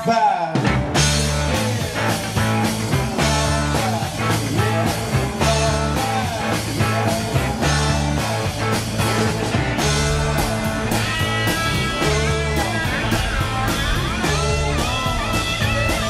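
Live rock band playing an instrumental passage without vocals. A drum kit with cymbals keeps a steady beat over repeating bass notes, and an electric guitar plays a lead line with bent notes, the bends clearer in the second half.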